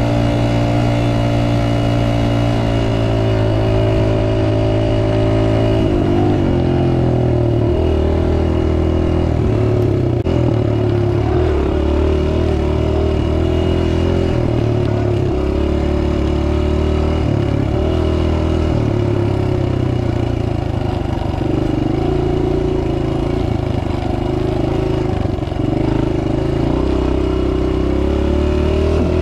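Dirt bike engine running while riding a trail. The note holds steady for the first few seconds, then rises and falls repeatedly with the throttle.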